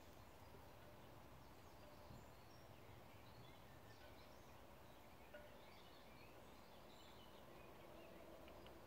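Near silence: faint steady background noise of the outdoors, with faint chirps and short trills of small birds singing at a distance.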